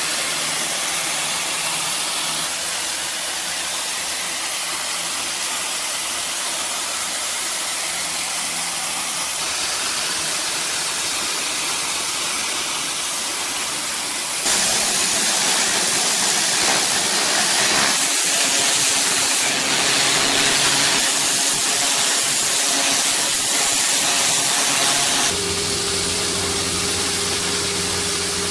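Pressure-washer jet spraying clay roof tiles, a steady loud hiss of high-pressure water. Near the end it cuts to an engine running with a steady hum.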